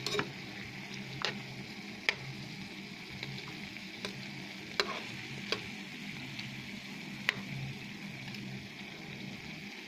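Raw chicken pieces sizzling in a little oil in a steel wok, a steady hiss broken by a handful of sharp pops. The chicken is being sautéed through, still red inside and giving up its juices, before any broth goes in.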